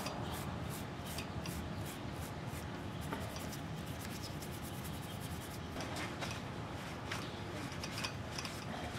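A small stiff brush scrubbing grime off the speedometer gear housing on a motorcycle's front wheel hub, in quick repeated strokes.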